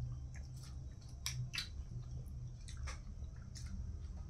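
Close-up eating sounds of a person eating by hand: wet chewing and lip smacks as a run of short, uneven clicks, loudest a little over a second in and again about three seconds in, over a steady low hum.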